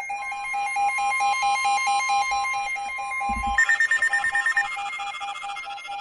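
Weather alert radios alarming at once: one gives a rapid, pulsing electronic beep, and a steady high warning tone sounds over it. About three and a half seconds in, more alarm tones join at a higher pitch, then the sound thins out near the end.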